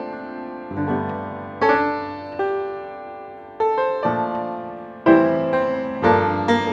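Background piano music: chords struck every second or so and left to ring and fade.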